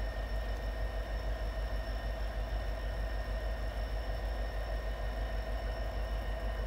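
An engine idling: a steady, low, evenly pulsing rumble with a few faint steady high tones above it.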